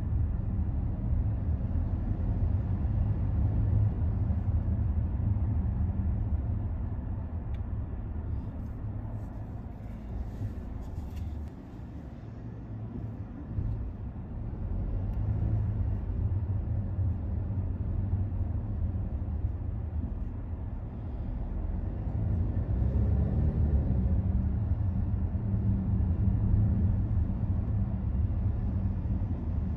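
A car driving: a steady low rumble of road and engine noise. It eases off about twelve seconds in, then builds again.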